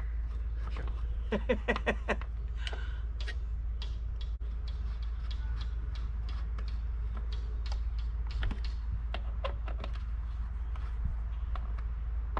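Scattered light clicks and taps of hands working on the mower, over a steady low hum. The lawn mower engine is not running.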